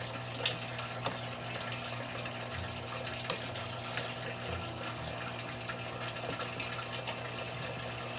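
Chicken feet adobo simmering in its soy sauce and vinegar in the pan: a steady bubbling hiss, with a few light clicks in the first few seconds.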